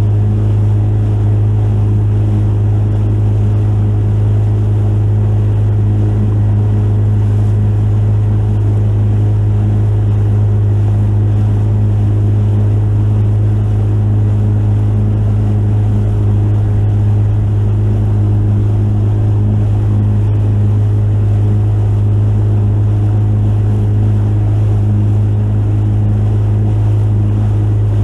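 Fishing boat's motor running at a constant speed while the boat cruises, a steady unchanging drone.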